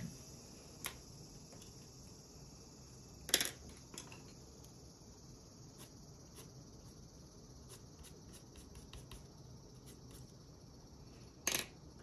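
Colored pencils clicking against each other and the desk as they are put down and picked up from a loose pile: two louder clacks, one a few seconds in and one near the end, with light ticks between, over a steady high hiss.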